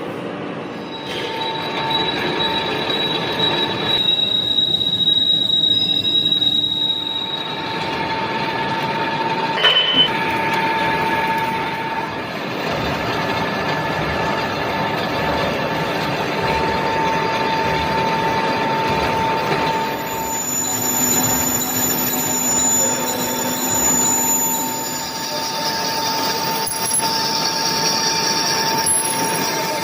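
Metal lathe machining a workpiece: continuous cutting noise with steady high squealing tones from the tool on the metal, shifting in pitch several times. A short sharp click about ten seconds in.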